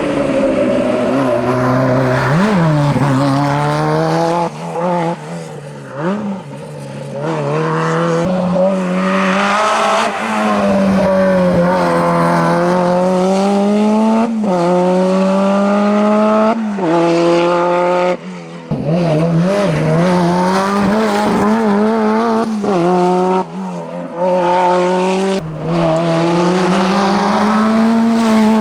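Renault 5 Turbo's turbocharged engine driven hard, revving up through the gears. The pitch rises steadily and drops sharply at each of several upshifts, with a few brief lifts off the throttle.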